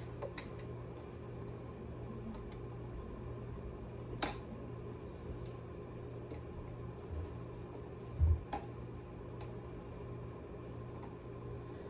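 Hands handling small parts while fitting an M.2 SSD into a PS5's expansion slot: a few small clicks and a dull thump about eight seconds in, over a steady low hum.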